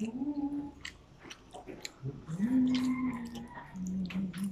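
A child chewing and slurping black bean noodles, with many short wet mouth clicks. Three short, steady low hums come between the bites.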